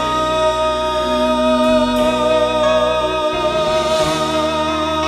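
Music from a Chinese ballad: a long melody note held with vibrato over sustained instrumental backing.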